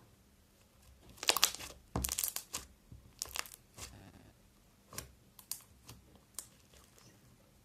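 Slime being kneaded and stretched by hand, giving a series of short, sticky crackles and pops, the loudest a little over a second in and around two seconds in, then smaller ones scattered after.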